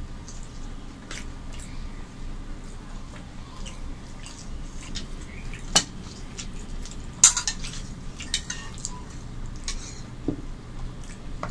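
Eating sounds from a meal of rice and curries eaten by hand: soft mixing and chewing with scattered clinks of a spoon and ceramic bowls, the two sharpest about six and seven seconds in as a bowl of dal is lifted and served. Under it runs a steady low hum.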